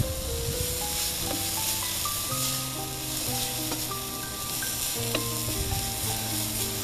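Chopped apple, onion and celery sizzling in oil in a wok, stirred with a wooden spatula. Soft melodic background music plays over it.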